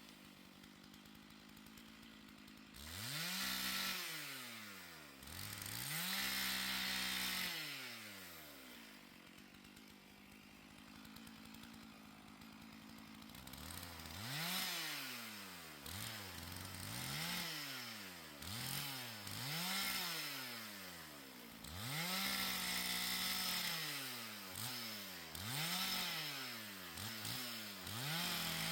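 Two-stroke chainsaw cutting a fallen tree into firewood lengths. The engine revs up and falls back again and again, idles low for a few seconds in the middle, then goes through a quick run of rev-ups and short full-throttle spells.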